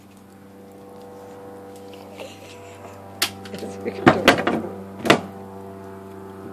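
A long dead tree branch being bent and pulled against wooden deck boards: a few sharp knocks and cracks, a cluster of them about four seconds in and one more about a second later, without the branch snapping.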